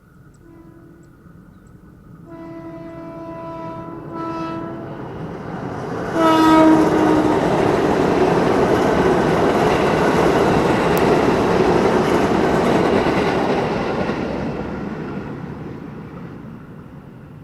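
A train sounds its horn several times as it approaches, a faint short blast, a longer one, a short one, then the loudest blast as it arrives about six seconds in. The train then rushes past with a loud steady noise that fades over the last few seconds.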